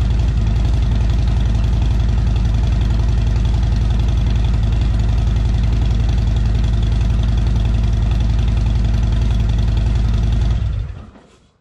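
Harley-Davidson CVO Milwaukee-Eight 117 V-twin idling through 4.5 inch Shark Road exhaust tips on the factory header pipes with catalytic converters, a steady loud pulsing beat. The engine dies away about a second before the end.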